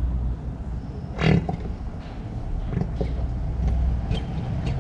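Engine oil being poured into a motorcycle engine's filler, a low irregular gurgling, with one short louder sound about a second in.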